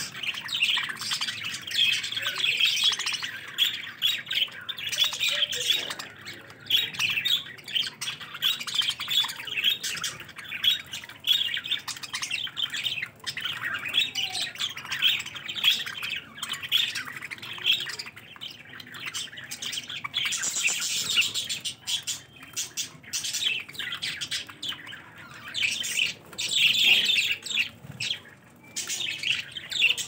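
A flock of budgerigars chattering and chirping nonstop, many birds at once, the loudness rising and falling unevenly.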